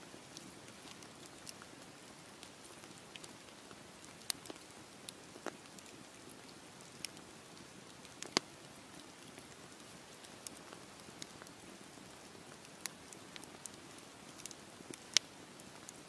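Wood campfire burning: a soft steady hiss of the flames with scattered, irregular sharp crackles and pops from the logs, the loudest pop near the end.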